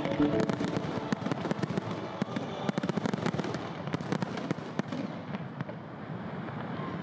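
Fireworks crackling: a dense run of sharp little cracks that thin out and grow fainter toward the end. Background music dies away in the first second.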